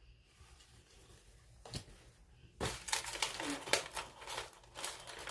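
Packaging crinkling and rustling as items are handled in a subscription box. It follows a single click and begins about two and a half seconds in.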